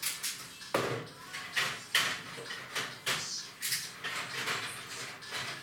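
Crockery clattering and clinking in a sink during hand dishwashing: a run of sharp knocks at uneven intervals, the loudest about a second and two seconds in.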